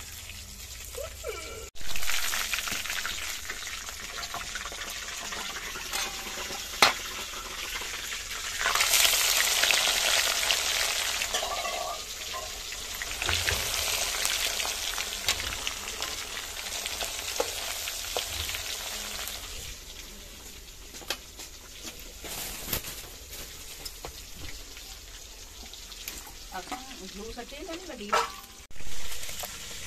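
Pieces of fish frying in hot ghee in an iron karahi: a steady sizzle scattered with pops and crackles, loudest for about ten seconds from around nine seconds in. The spitting comes from water left on the freshly washed fish.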